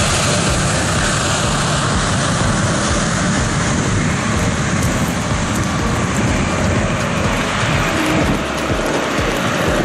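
Airliner jet engines running steadily, mixed with wind and rain noise.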